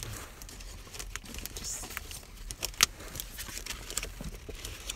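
Glossy pages of a photobook being turned by hand: soft paper rustling with scattered light flicks and one sharper snap of a page nearly three seconds in.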